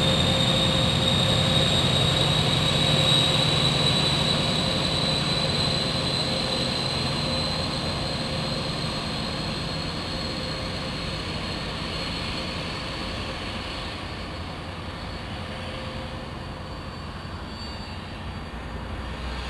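Class 43 HST power car's Paxman Valenta V12 diesel, its high-pitched turbocharger scream slowly rising in pitch as the engine works under power and steadily fades into the distance.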